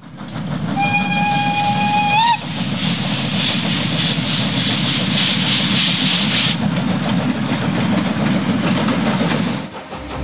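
Steam locomotive's whistle sounds one blast of about a second and a half, its pitch rising briefly as it cuts off, over the locomotive's steady low rumble. Steam hisses for several seconds after the blast, then only the rumble remains, fading near the end.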